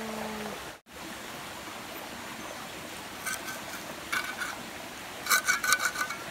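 A metal garden trowel scraping and prying under a mat of moss on a rock, in three bursts of rough scrapes and clicks, the loudest near the end, over the steady rush of a nearby stream.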